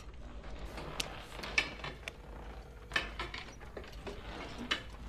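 Rotary telephone dial being turned and ratcheting back, with several sharp clicks.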